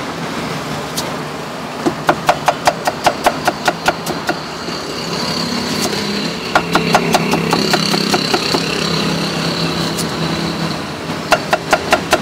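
Cleaver slicing cucumber against a thick wooden chopping block, in three quick runs of sharp knocks about six or seven a second. Underneath is a steady engine-like hum with a thin high whine.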